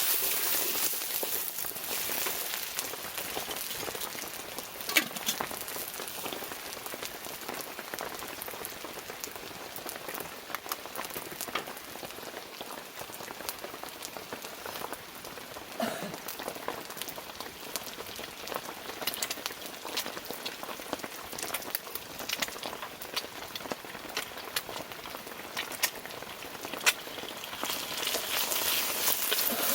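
Rain falling steadily, a dense patter of drops hitting a surface, heavier near the end.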